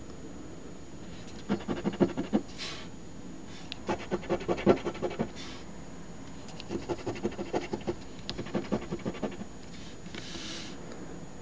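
Coin scratching the latex coating off an instant lottery scratch ticket, in four quick bursts of rapid scratching strokes.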